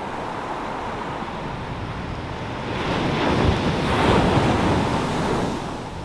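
Pacific Ocean surf breaking on a sandy beach: a steady wash of waves that swells as a wave breaks about halfway through, then eases off near the end.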